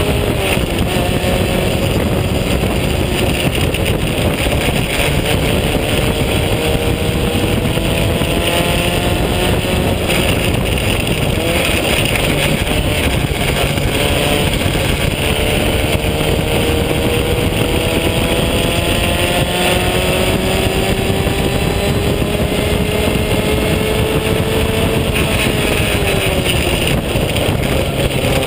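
Onboard sound of a vintage open-wheel formula race car's engine under hard acceleration. The revs climb slowly over long stretches and drop back twice, about eleven seconds in and near the end, over heavy wind rush at the microphone.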